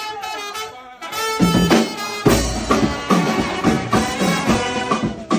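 Brass-led music: a held brass chord, then about a second in drums and brass phrases come in with a steady beat.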